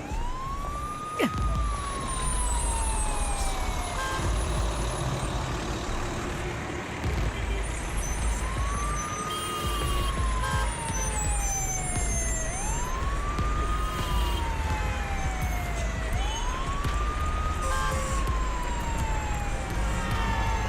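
Cartoon emergency-vehicle siren wailing four times, each wail rising quickly and then falling slowly, over a low vehicle rumble. A quick falling whistle comes about a second in, and short high beeps are scattered through.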